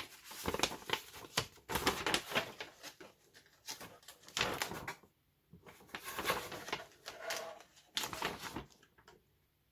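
Irregular rustling and light knocks of paper leaflets and small parts being handled, with a short pause about five seconds in. The handling stops near the end.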